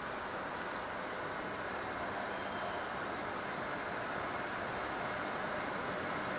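Distant rumble of an unseen diesel freight train approaching, a steady noise that grows slightly louder toward the end.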